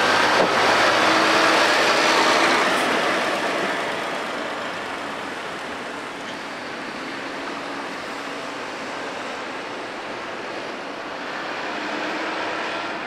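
Heavy diesel lorry passing close by with engine and tyre noise, loudest in the first few seconds and then fading as it drives away.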